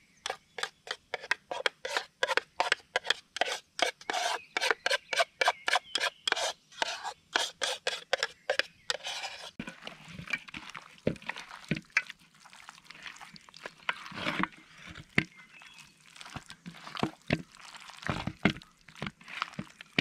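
A spoon scraping thick yogurt marinade around a plastic tub in quick, even strokes, about three or four a second, for roughly nine seconds. Then hands squelch the marinade through raw lamb in a glass bowl, with irregular wet slaps and a few dull knocks.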